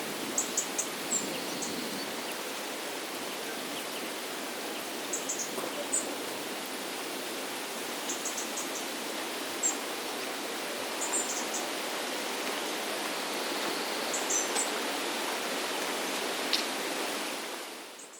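Steady rush of a stream's running water, with small birds chirping in short high bursts every few seconds. It fades out near the end.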